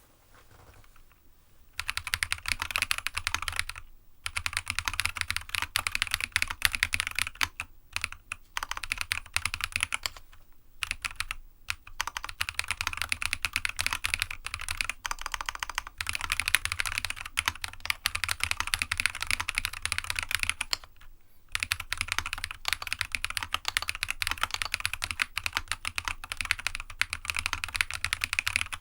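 Steady fast typing on a GEONWORKS F1-8X custom mechanical keyboard with a polycarbonate sandwich plate, Jade Black switches and Enjoy PBT dye-sub keycaps: rapid key clicks and clacks, starting about two seconds in, with a few brief pauses.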